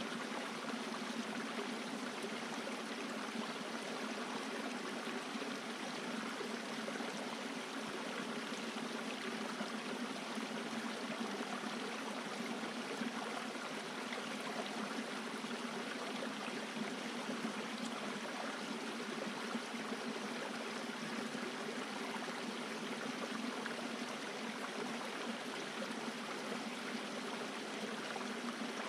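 A stream running steadily, an even rushing of water with no breaks.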